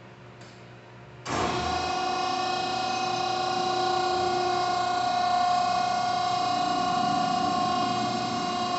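Hydraulic vertical baler's 10 HP electric motor and hydraulic pump switching on about a second in, then running with a steady whine.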